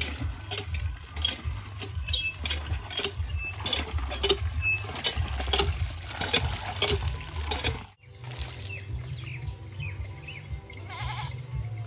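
Hand pump being worked, its iron handle creaking and clanking with each stroke while water gushes out of the spout into a tub.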